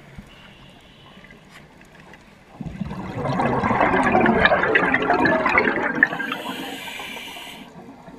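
A scuba diver exhales through the regulator underwater: a loud rush of gurgling bubbles starts about two and a half seconds in, swells and fades away over about four seconds. A thinner hiss of the next breath drawn through the regulator follows near the end.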